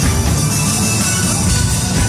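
Live party band playing loudly: drum kit, electric guitars and keyboards.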